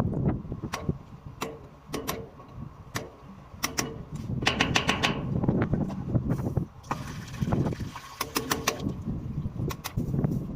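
Hand-tool work on a fire hydrant: quick runs of sharp metallic clicks and separate knocks, over a steady low rumble.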